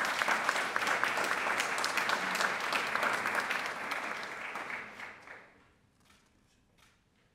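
Audience applauding, the clapping dying away about five and a half seconds in, followed by a few faint clicks.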